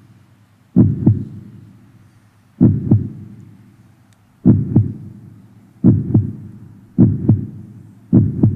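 Heartbeat sound effect: six paired low thumps (lub-dub) that speed up, from about one beat every two seconds to about one a second.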